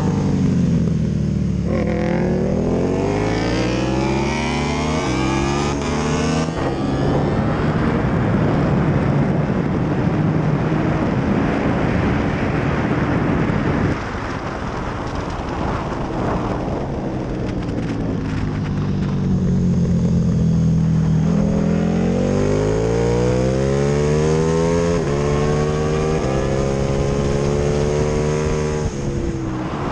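KTM 1290 Super Duke R V-twin at full throttle on track: the engine note climbs in steps as it shifts up through the gears, with wind rush on the onboard microphone filling the sound at top speed. About halfway through it drops suddenly and falls in pitch as the bike brakes and shifts down, then climbs through the gears again with several quick upshifts near the end.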